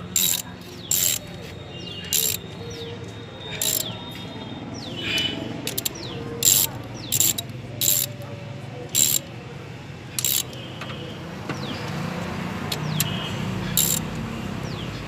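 Socket ratchet wrench clicking in about a dozen short, irregularly spaced bursts as the cylinder head bolts are run down on a freshly fitted engine head.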